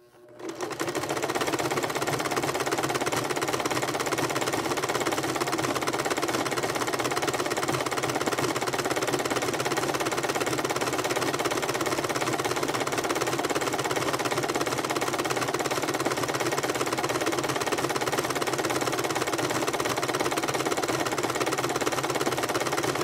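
Electric sewing machine running steadily at speed, the needle stitching coils of fabric-wrapped cord together into a rope bowl. It speeds up over the first second and stops right at the end.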